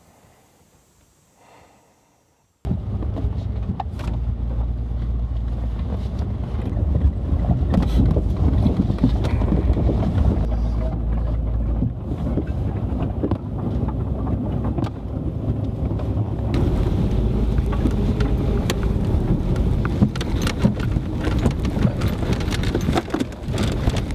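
Cabin noise of an SUV crawling up a rough, unmaintained dirt track: a steady low rumble of engine and tyres with frequent knocks and rattles as it bounces over rocks and ruts. It is very quiet for the first two seconds or so, then the rumble cuts in abruptly.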